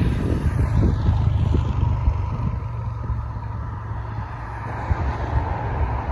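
Airbus A320 jet engines at takeoff thrust during the takeoff roll: a steady low rumble with a thin whine that grows louder over the last couple of seconds as the airliner comes abeam, with wind buffeting the microphone.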